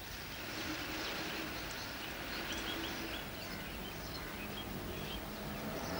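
A few faint bird chirps over a steady background hiss.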